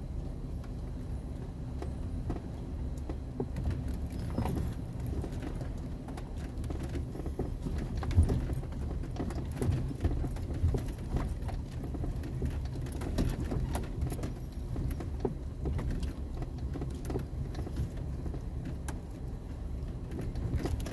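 Off-road vehicle's engine running steadily at crawling speed, heard from inside the cabin, with frequent small clinks and rattles as it bumps over a rough dirt trail and one louder knock about eight seconds in.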